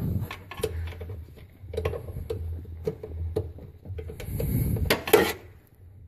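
Irregular metallic clinks, knocks and scrapes of a wrench working a 10 mm bolt loose on the side of a manual transmission, with a cluster of louder knocks about five seconds in.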